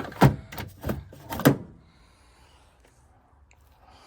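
A few sharp clicks and knocks in the first second and a half as the small metal cap on the back of a Subaru HID xenon low-beam bulb is worked off inside the headlight housing.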